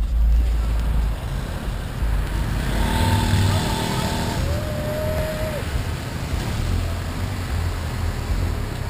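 Road noise from a moving scooter, with wind buffeting the mounted microphone and cars passing close alongside. About three seconds in, a brief pitched sound is heard, then a single tone that rises and holds for about a second.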